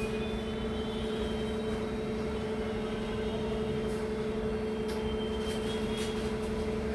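Steady mechanical hum with a constant low droning tone, a small electric motor or appliance running, with a few faint ticks.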